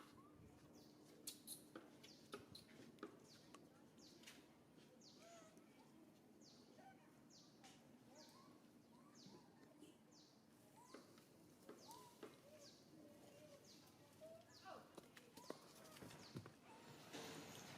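Faint outdoor ambience with a bird giving a short, high, falling chirp over and over, roughly once a second, with a few soft squeaks and clicks in between.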